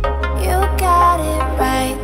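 Background music: an electronic track with a steady deep bass and a melody that slides between notes.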